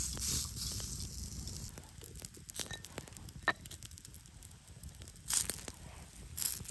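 Sausage sizzling on a hot cast-iron grill pan over wood coals, the sizzle fading after about a second and a half, with a few sharp crackles. Near the end, two short crisp rustling crunches as a bunch of dry herb stems is handled over the open clay pot.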